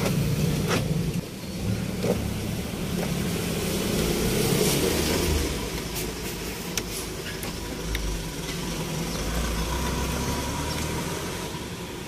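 Mitsubishi Adventure's engine idling steadily, heard from inside the cabin, with a few sharp clicks as the power door locks are worked near the start and again later on.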